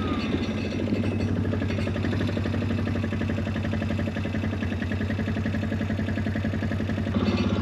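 A vehicle engine running steadily with an even pulse, a little louder near the end.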